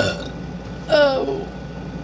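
A woman burps loudly once, about a second in, a voiced burp lasting about half a second. A brief sharp sound comes right at the start.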